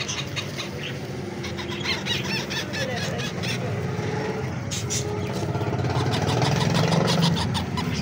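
Parrot chicks calling as they are hand-fed: rapid, pulsing begging squeaks and short chirps, growing louder toward the end, over a low steady hum.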